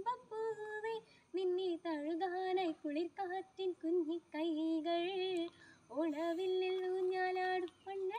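A girl singing a Malayalam Onam song solo and unaccompanied, in phrases of ornamented, held notes with two short breaks for breath.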